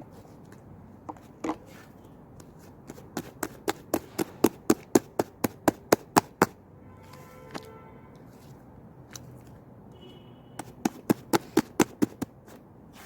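Two-layer slime being pressed and poked by hand, making sharp popping clicks in two quick runs of about three to four a second.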